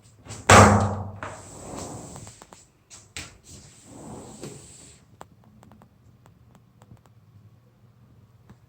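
A loud bang about half a second in with a short ringing tail, then a sharp click about three seconds in and some rustling handling noise.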